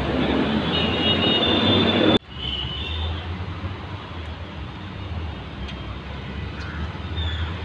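Busy street noise: a loud, steady traffic rush with some high squeals, cut off abruptly about two seconds in and followed by a quieter, steady background with a low rumble.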